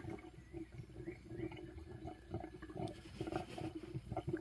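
Faint, irregular gurgling and popping of air bubbles rising through the coolant in the reservoir, over a faint steady hum. The compressed air forced into the cylinder is leaking into the cooling system: the sign of a blown head gasket.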